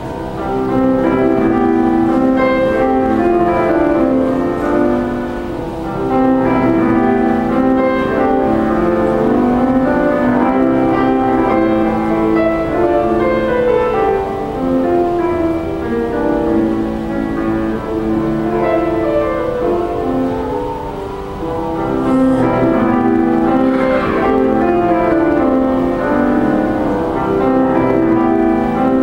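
Grand piano played solo: a flowing piece of held chords with a melody over them, continuing without pause.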